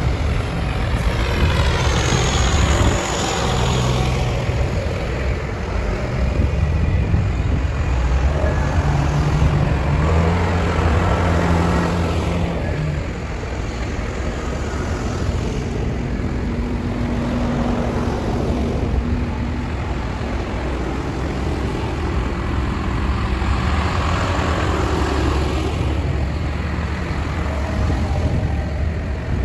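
Tractor engines running as tractors go by one after another, the sound swelling and fading as each passes, over a steady low rumble.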